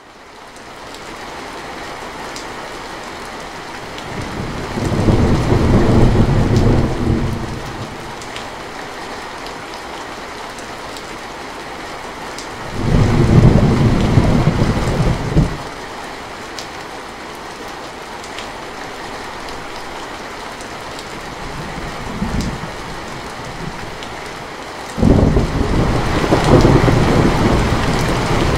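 Heavy rain on a metal roof, fading in at the start and then falling steadily, with rolls of thunder. There are long rumbles about five and thirteen seconds in, a short one a little past twenty-two seconds, and a loud roll starting about twenty-five seconds in that carries on.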